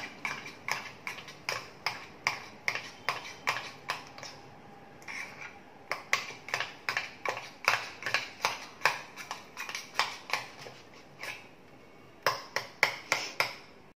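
A metal spoon stirring thick gram-flour (besan) batter in a glass bowl, clinking against the glass about three times a second, with a couple of short pauses.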